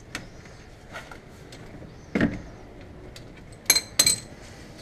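Metal hand tools clinking under a car while its underbody splash shield is being unfastened. There is a dull knock about two seconds in, then two sharp, ringing metallic clinks in quick succession near the end.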